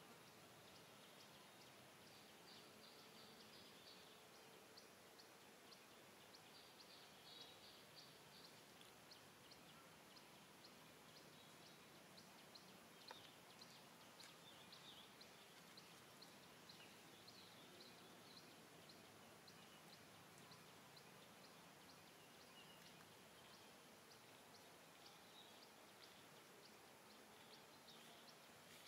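Near silence: faint outdoor ambience with a steady soft hiss, light high-pitched ticking and a few brief faint chirps.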